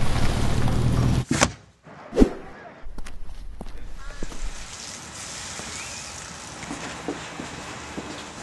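A car engine running with a low, steady rumble that cuts off suddenly, followed by two sharp knocks like a car door shutting, then light footsteps on brick pavers.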